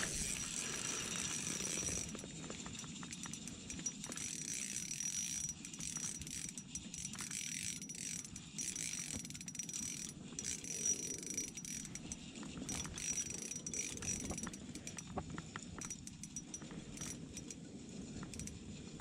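Spinning reel being cranked to bring in a crappie, a steady fine clicking and whirring of the reel's gears.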